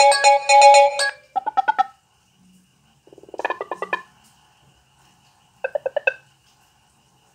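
Cell phone ringtones playing. A dense, repeating electronic melody cuts off about a second in, then a sparser tone follows: three short runs of quick notes with pauses of a second or more between them.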